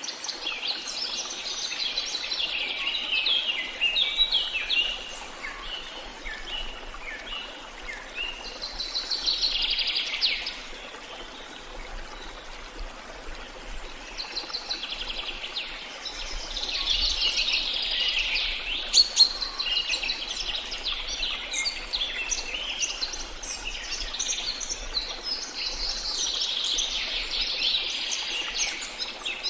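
Songbirds chirping and singing in quick, rapid phrases, coming in several bouts, over a faint steady hiss of running water.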